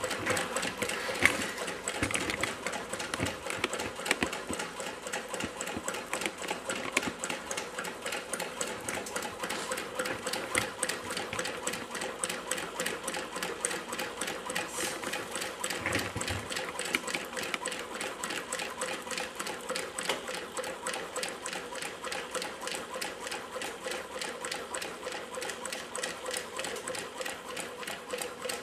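Homemade Stirling engine running on the heat of a wood stove, its crank and linkage working a magnet through a shaker-flashlight coil with a steady, rapid mechanical clatter.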